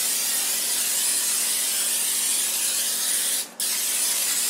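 Aerosol cooking spray hissing steadily onto a metal sheet pan, with a short break about three and a half seconds in before the spray resumes.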